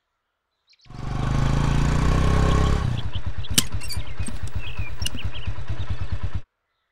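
Motorcycle engine running as the bike rides up and stops, then idling with an even, rapid putter and a single sharp click in the middle. The engine sound cuts off suddenly near the end.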